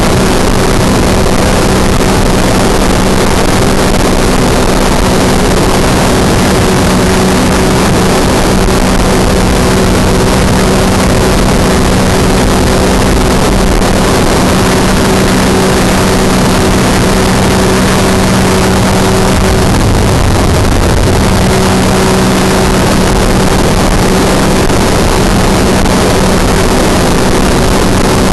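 Ultralight trike's engine and propeller running steadily at cruise in flight, a constant loud drone over rushing air.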